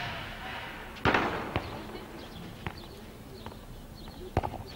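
Several sharp pops at irregular intervals, the loudest about a second in, with quiet between them.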